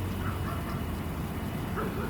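Birds calling faintly a few times over a steady low rumble of the river scene.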